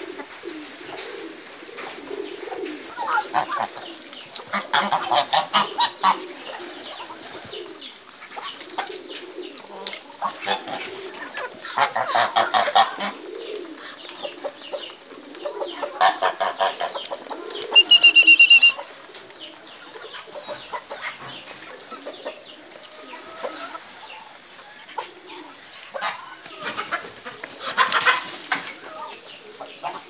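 Free-ranging chickens clucking in several bursts of rapid calls, over a continuous low chatter of other poultry. A single short, steady high-pitched whistle-like tone sounds once, about eighteen seconds in, and is the loudest sound.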